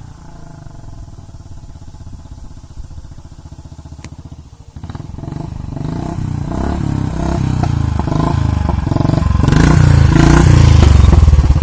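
Royal Enfield Thunderbird 350X's single-cylinder engine through a short-bottle aftermarket silencer, thumping steadily at low revs, then from about five seconds in pulling harder and growing steadily louder, loudest near the end.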